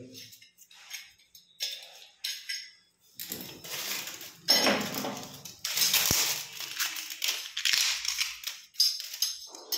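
Handling noise: the phone's microphone rubbing and scraping against a cotton shirt, with a few sharp clicks at first and dense, irregular rustling in the second half.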